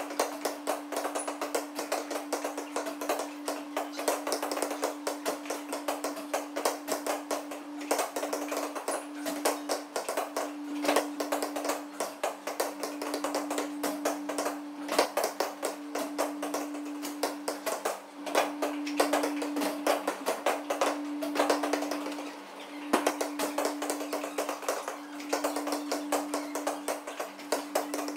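Background music with busy, irregular tapping and clicking, over a steady low hum.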